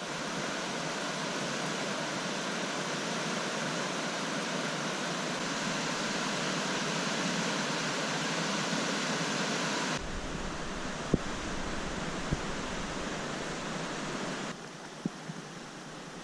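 Steady rushing of the Soła river running high and swollen after heavy rain. About ten seconds in, the sound changes abruptly to a deeper rumble with two sharp knocks, and it drops quieter near the end.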